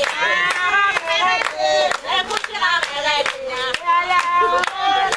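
Voices singing together over rhythmic hand clapping, about two to three claps a second.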